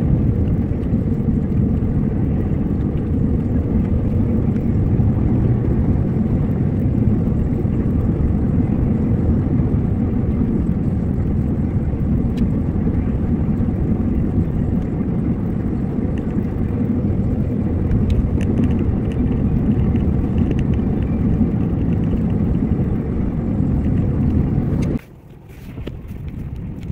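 Steady low rumble of road and engine noise inside a moving car's cabin, its tyres running on a snow-covered road. About 25 s in, the sound drops suddenly to a quieter, thinner noise as a different recording begins.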